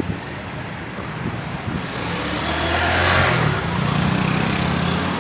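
Street traffic, with a small motorcycle's engine running close by. The noise swells as a vehicle passes, loudest about three seconds in, and the engine's steady hum carries on after it.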